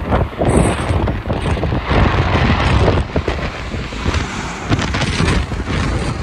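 Strong gusty wind buffeting the microphone, mixed with the jet engine noise of a Ryanair Boeing 737 passing low overhead on final approach.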